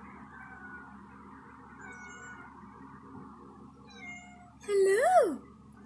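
A tiny kitten meows once, loud and long, about four and a half seconds in: the call holds one pitch, then rises and falls away. Fainter, higher little cries come before it.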